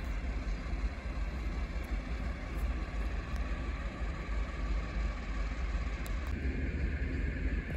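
Steady low rumble of railway station background noise, with no train passing.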